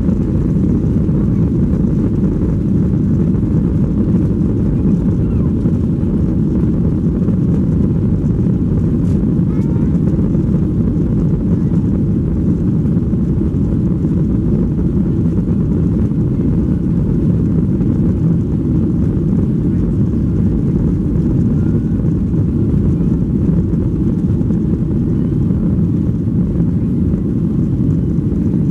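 Steady low rumble inside the cabin of a Boeing 737-800 taxiing, its CFM56-7B engines at taxi power and the aircraft rolling along the taxiway.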